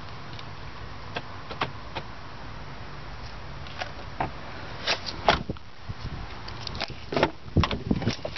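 Clicks and knocks of handling inside a Ford Escape's cabin over a steady low hum, with a cluster of louder knocks about five seconds in and again near the end as the rear door's latch and door are worked open.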